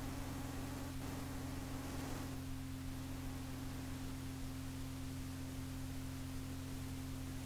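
Steady electrical hum with a faint hiss from the blank lead-in of a cassette tape being played back.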